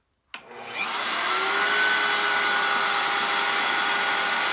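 Bosch 1617 router motor switched on with a click, its whine rising as it spins up to speed over about a second, then running steadily at full speed.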